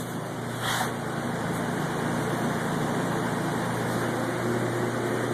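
Basement furnace running with a steady mechanical hum, and a brief rustle about a second in.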